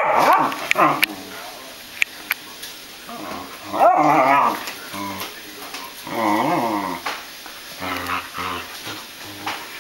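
Beagle puppy vocalising in four short bouts, each about a second long and wavering in pitch.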